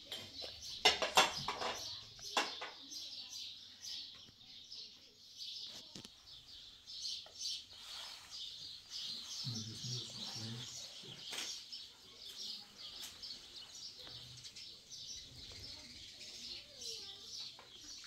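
A flock of small birds chirping continuously. A few sharp knocks come about a second in and are the loudest sounds.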